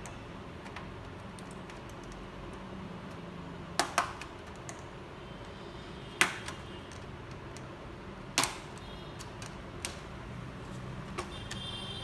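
Plastic snap clips of an HP 15 laptop's bottom cover popping loose as it is pried open with a plastic pry tool: a pair of sharp clicks about four seconds in, single ones about two and four seconds later, then a few lighter ticks.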